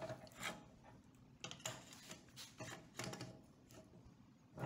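Steel hood hinge from a 1968 Dodge Charger, clamped in a bench vise, being swung open and closed by hand: a few faint metallic clicks and knocks from its pivots and linkage. The hinge is freshly repaired, its loose rivet welded up, and it moves tight through full travel.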